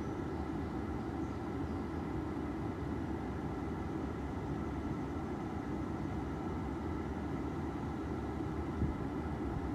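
Steady whooshing hum of the pickup's cabin air-conditioning blower running with the ignition switched to run, with a faint steady whine over it and a small tick near the end.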